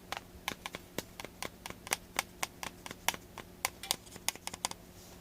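Typing a text message on a phone: quick, irregular taps on the screen, about five a second.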